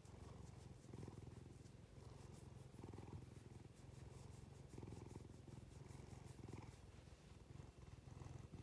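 Domestic cat purring steadily and quietly while being stroked under the chin, the purr swelling and easing in waves about once a second.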